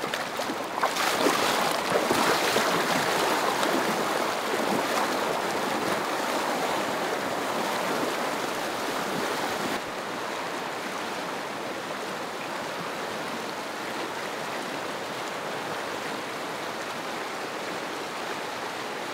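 Fast, snowmelt-swollen river rushing over rocks, with louder, uneven splashing over the first few seconds as a person wades in. About ten seconds in the sound drops to a steadier, even rush.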